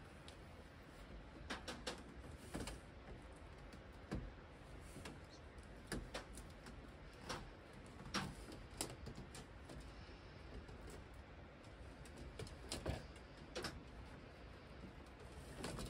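Irregular small metal clicks and snips from hand cutters working through the metal armor of an armored ground cable, a second or two apart.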